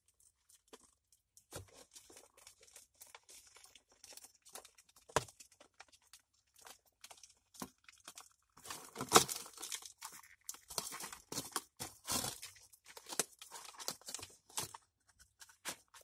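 Thin clear plastic cricket box crackling and clicking in irregular bursts as a Cape monitor lizard pushes its head into it after the crickets, busier in the second half with one sharp, loud click about nine seconds in.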